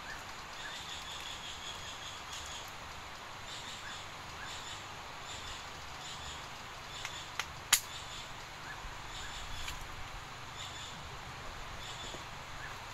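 Quiet outdoor evening ambience: a steady hiss with short, high chirping calls that come in small clusters every second or so. Two sharp clicks sound close together about halfway through.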